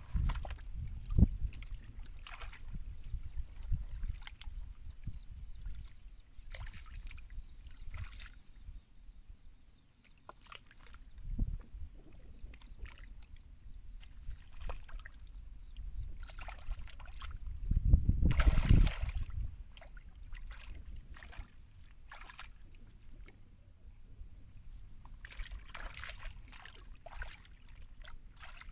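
Hands sloshing and splashing through shallow muddy water while groping for fish, in irregular short splashes, with one louder, longer burst of splashing about two-thirds of the way through.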